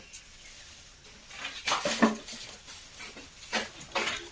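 Rustling and light clattering in a few short bursts, a cluster about a second and a half in and two more near the end, as leafy wampee fruit branches are handled and trimmed.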